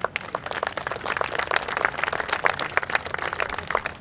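Audience applauding, many hands clapping at once; the clapping thins out near the end.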